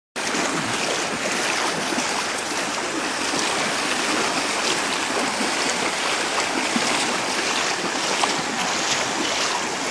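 Fast-flowing floodwater rushing steadily over a flooded field, with splashing from legs wading through the current.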